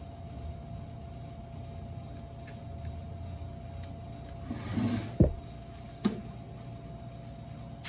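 Steady room hum with a faint constant tone. About five seconds in there is a short rustle, then a sharp knock, and a second, smaller knock about a second later, as the camera is handled and moved.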